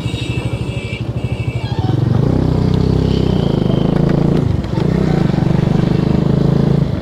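Motorcycle engine running while riding, getting louder about two seconds in, with a brief dip a little past halfway.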